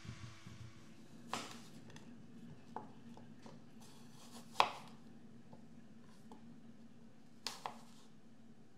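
Chef's knife slicing an apple on a plastic chopping board: a handful of separate knocks as the blade cuts through and meets the board, the loudest a little past halfway and two in quick succession near the end. A faint steady hum runs underneath.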